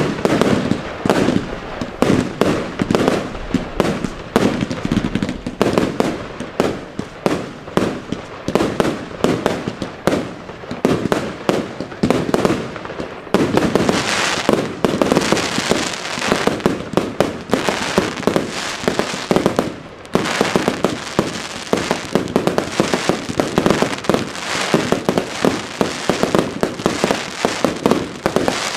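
Daytime fireworks firing a rapid, unbroken string of pops and bangs, several a second. About halfway through it thickens into denser crackling.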